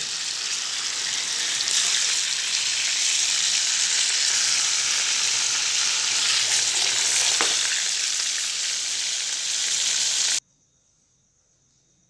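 Fish frying in hot oil in a pan: a steady sizzle with one light knock past the middle, cutting off suddenly near the end.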